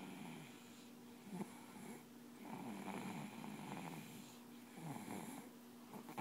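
A sleeper snoring: a snore on each breath, several in a row, over a steady low hum.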